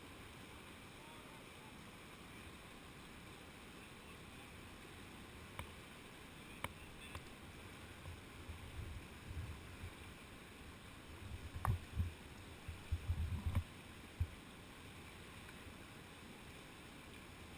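Steady rush of a whitewater rapid heard from a kayak, with a run of low thumps and a few sharp clicks from about eight to fourteen seconds in.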